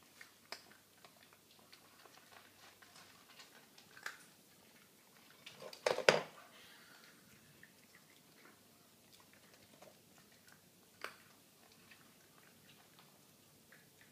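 Pekingese puppy eating: a run of small chewing and biting clicks, with a louder knocking clatter about six seconds in.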